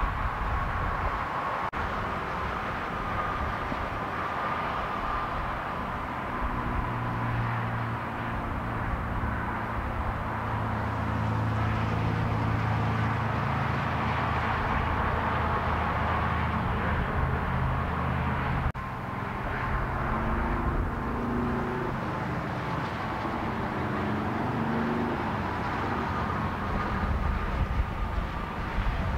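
Steady traffic noise from vehicles on a freeway, with a low engine drone that is strongest through the middle and changes abruptly at two cuts.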